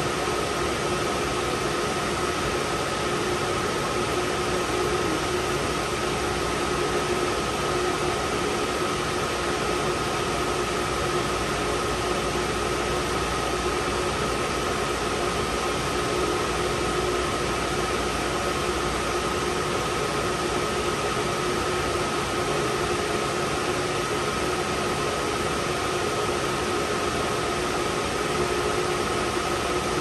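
Steady whir of equipment-room cooling fans and air conditioning, a constant rushing noise with a steady high hum running through it.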